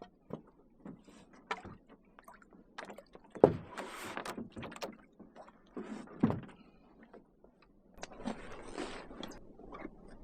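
Canoe being paddled in to a landing: irregular paddle splashes and water noise, with a few sharp knocks, the loudest about three and a half and six seconds in.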